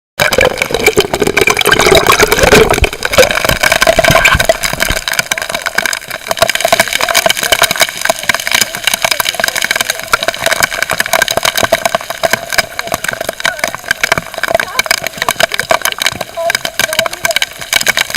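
Heavy rain with big drops striking the sea surface, heard from just under the water as a dense, continuous crackling hiss. A louder low rumble fills the first five seconds, then fades.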